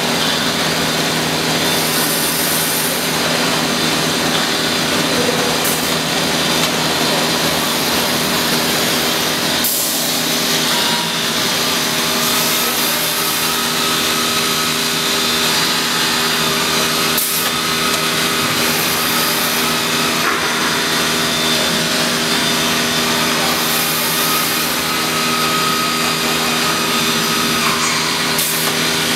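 CNC router spindle cutting a wooden panel: a steady high machining hiss over a constant machine hum, with brighter surges of cutting noise coming and going every few seconds as the cutter works.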